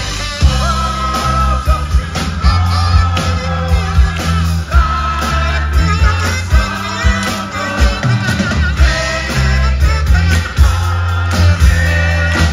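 Live rock band playing, with electric bass, drum kit and guitar under a lead vocal and a group of backing singers singing together, over a steady drum beat.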